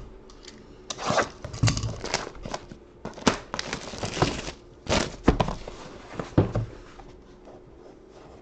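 Plastic shrink-wrap and packaging being torn and crinkled off a sealed box of trading cards: a run of irregular short tearing and rustling sounds.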